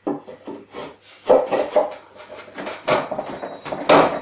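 Wooden shelf being slid into the housing joints of a small wooden cupboard: wood rubbing and knocking as it is pushed home in a close-fitting joint, in an irregular run of scrapes and knocks, the loudest near the end.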